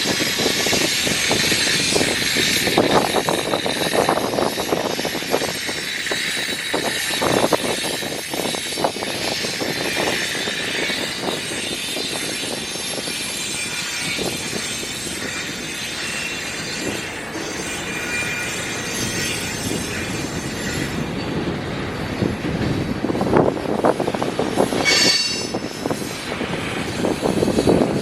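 Train rolling past, its steel wheels running on the rails with a steady high squeal and occasional knocks.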